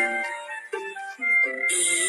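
Music: a short melody of steady pitched notes moving in steps, with a burst of hiss joining in near the end.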